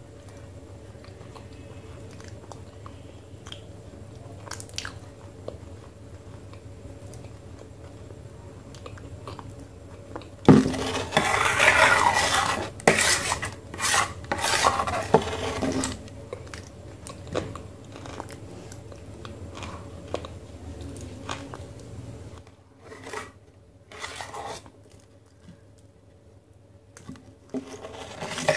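A metal spoon scraping thick fuller's earth (multani mitti) clay paste off a stainless steel plate, with clicks of spoon on metal. The scraping is loudest and most continuous for several seconds starting about a third of the way in, and comes in short scrapes after that. A steady low hum underneath stops suddenly about three-quarters of the way in.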